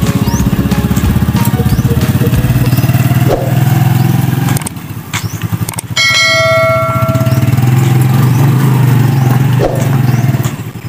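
Motorcycle tricycle engine running with a fast, even pulse. About six seconds in a bright bell chime rings once.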